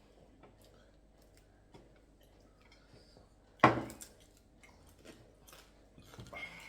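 Quiet eating sounds, chewing and small clicks, with one loud sudden knock a little past halfway.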